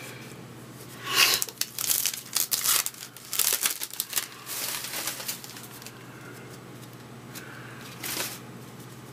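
A foil baseball card pack wrapper crinkling and tearing as it is opened by hand, in a run of bursts between about one and five seconds in, with a brief rustle near the end.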